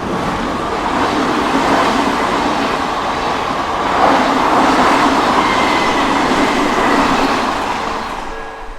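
An Odakyu Odawara Line train passing close over a level crossing: a loud rush of wheel and running noise that builds about a second in, is loudest in the middle and fades near the end. The crossing bell's steady ringing tones come back through as the train fades.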